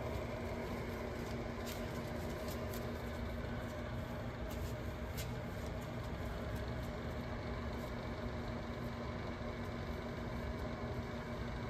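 Steady hum and whoosh of a small electric fan heater running, with a few faint light ticks in the first half.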